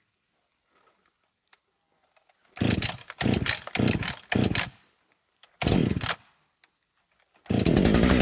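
Petrol chainsaw being started: four quick pulls about half a second apart, each giving a short burst of engine noise, then another pull a second later. Near the end the engine catches and keeps running.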